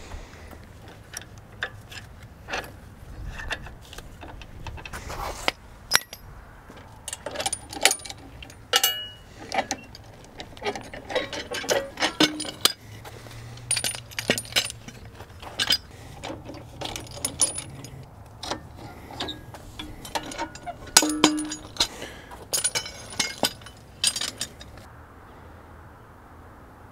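Irregular metal clanks and clinks of steel three-point hitch lift arms and their pins being handled and pulled off a compact tractor's hitch. The clinking dies away about two seconds before the end.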